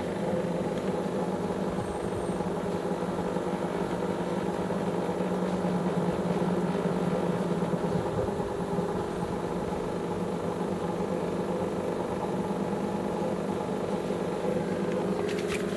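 Steady low engine drone heard inside a vehicle, with a few sharp clicks near the end.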